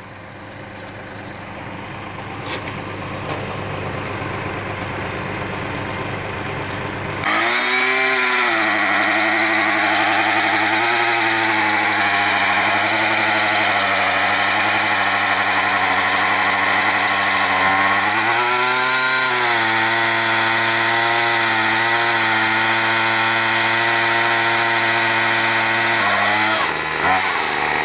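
Chainsaw opening up suddenly about seven seconds in and running hard, cutting wood, its pitch rising and falling a few times. Before that, a quieter engine sound grows steadily louder.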